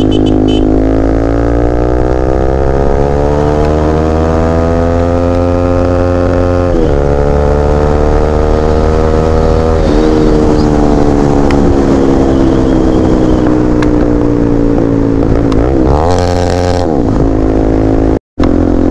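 Bajaj Pulsar NS200's single-cylinder engine, breathing through a newly fitted aftermarket exhaust, pulling under way: its pitch climbs slowly for several seconds, drops suddenly about seven seconds in and again about ten seconds in, as at gear changes, then falls away near the end. The sound cuts out for a moment just before the end.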